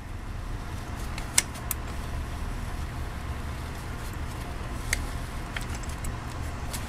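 A screw-type brake caliper piston wind-back tool turned by hand against a rear brake caliper, giving a few light metallic clicks as it rotates, over a steady low hum.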